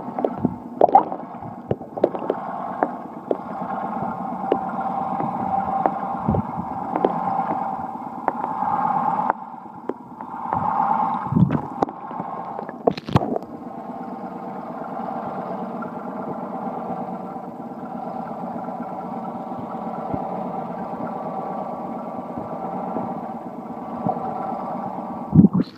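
Underwater sound picked up by an iPhone sealed in a Lifeproof case: a steady, muffled hum of several held tones, with a few sharp knocks against the case.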